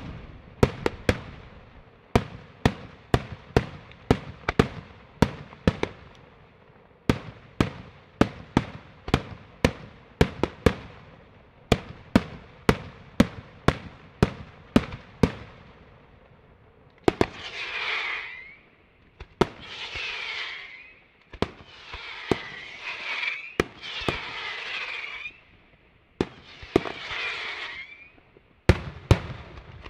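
Daytime aerial fireworks: a rapid series of sharp shell bursts, about two bangs a second. About halfway through they give way to five longer hissing, crackling bursts of a second or two each, and a few more bangs come near the end.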